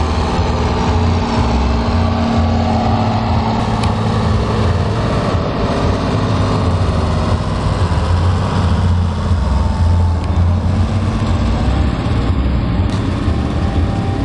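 Diesel engine of a stock farm tractor working hard under full load as it drags a weight-transfer pulling sled, a steady low drone that pulses slightly in level.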